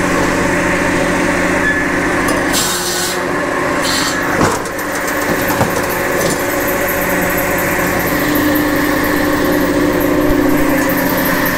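Japa 700 firewood processor running steadily, driven through its PTO shaft by an electric three-phase power pack, as its 700 mm belt-driven circular saw blade cuts into a sycamore log, with a sharp knock about four and a half seconds in.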